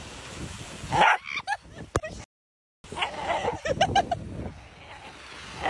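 A dog running zoomies and giving short excited yips and barks over wind and surf noise, with a quick run of yips a little before four seconds in. The sound cuts out for about half a second midway.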